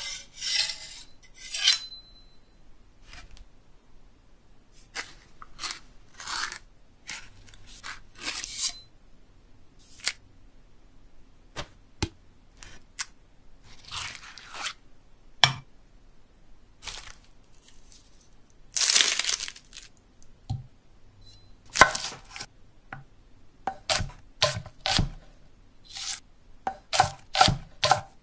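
A string of separate sharp clicks and clinks, tearing and slicing sounds, with a couple of longer swishing cuts about 14 and 19 seconds in, then quick knife chops on a wooden cutting board near the end.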